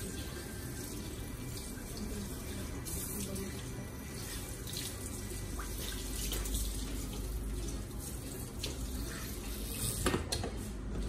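Water spraying from a handheld sink sprayer onto bare feet and splashing into a ceramic washbasin, with hands rubbing the wet feet. A brief knock about ten seconds in.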